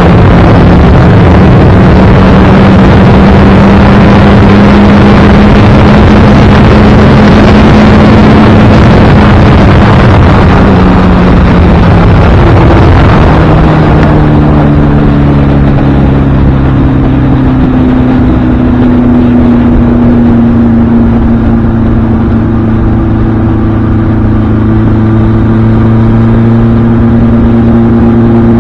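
1976 Kawasaki KZ1000's air-cooled inline-four engine running steadily on the road under heavy wind rush on the microphone. About halfway through, the wind noise drops sharply and the engine note falls and settles at a lower pitch.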